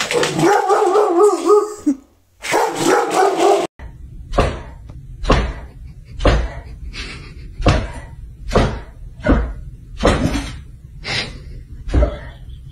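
A dog barking over and over at an even pace, about one bark every three-quarters of a second, a dozen or so in all. Before the barking, in the first few seconds, comes a long wavering pitched cry.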